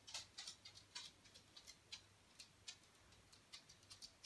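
Near silence: room tone with faint, irregularly spaced ticks.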